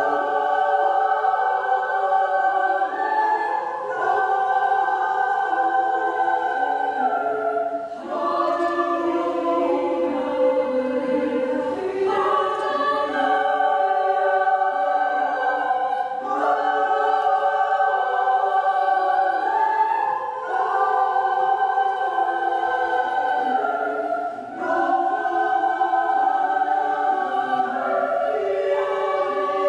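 Choir singing unaccompanied in long held chords, with short breaks between phrases every few seconds.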